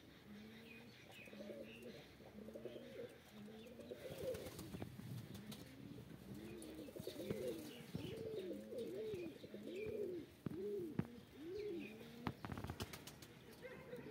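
Domestic pigeons cooing over and over, low rising-and-falling coos that come thicker, about two a second, in the second half.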